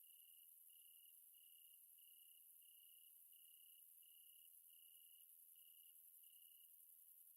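Near silence, with a faint high tone pulsing evenly about one and a half times a second over a faint hiss.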